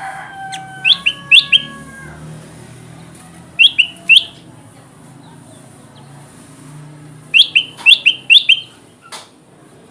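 Kutilang emas (a bulbul) calling in quick runs of short, sharp chirps that slide down in pitch: three notes about a second in, three more near the four-second mark, and five near the end.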